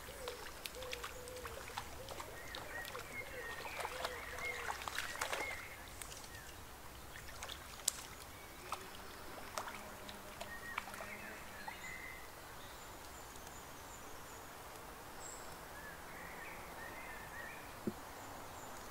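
Riverside ambience: a steady hiss of flowing water with birds singing. The first five seconds or so are louder, with warbling calls and many sharp clicks, and after that it is quieter, with a few isolated clicks and high chirps.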